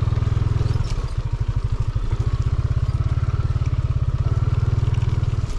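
Yamaha motorcycle engine running at low speed with a steady, even throb while riding on a rough dirt road. It eases off about a second in and picks up again shortly after.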